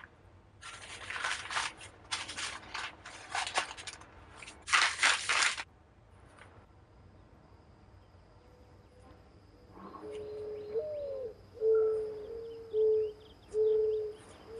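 A run of rustling scrapes over the first five or so seconds, then a mourning dove cooing from about ten seconds in: one rising-and-falling note, then three steady low coos.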